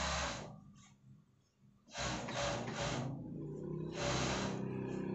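A person breathing close to the microphone in short hissing puffs, with three quick ones in a row about two seconds in.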